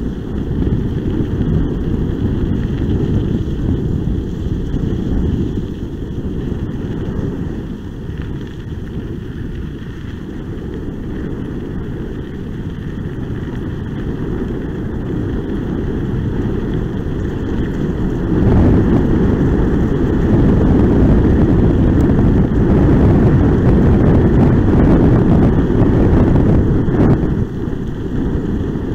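Kickbike tyres rolling fast over a gravel road, with wind buffeting the microphone: a steady low rumble. It grows louder about two-thirds of the way through and drops back near the end.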